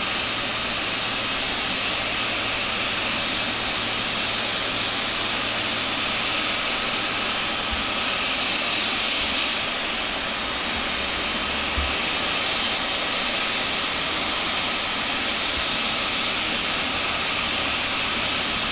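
Jet engines of a Boeing 777 freighter running steadily: an even jet rush with a faint steady whine in it, briefly brighter and sharper about halfway through.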